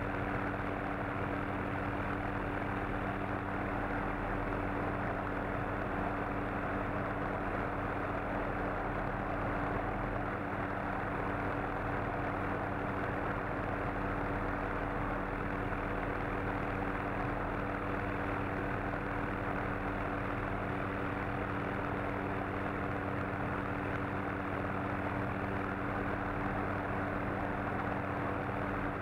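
Helicopter engine and rotor noise heard on board in flight: a steady, even drone with a constant hum of several steady tones.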